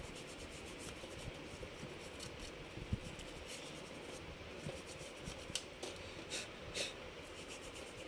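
A small bristle brush scrubbing the RAM slots of a laptop's memory bay, faint scratchy strokes that come and go, with a light knock about three seconds in.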